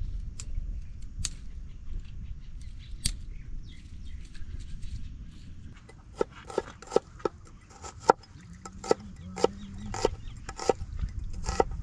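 A run of about a dozen sharp, ringing knocks at an uneven pace, starting around six seconds in, over a low steady rumble; a few single clicks come before them.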